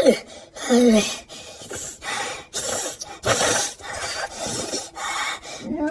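A man gagging and dry-heaving over and over, harsh rasping heaves about twice a second, a few of them with a short falling groan.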